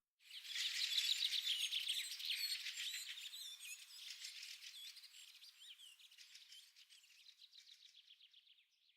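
Songbirds chirping and twittering, many overlapping short calls, dying away gradually over several seconds.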